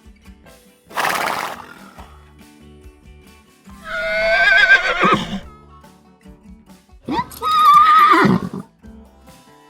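Horse whinnying twice, each call lasting about a second and a half with a wavering, quavering pitch; the second begins about seven seconds in. A short rushing burst comes about a second in.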